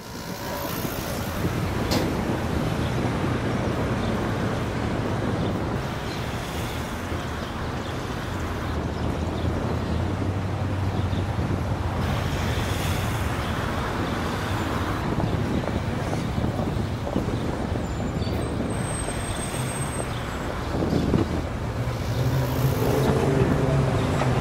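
Steady road traffic, with several vehicles passing by in turn and a sharp click about two seconds in.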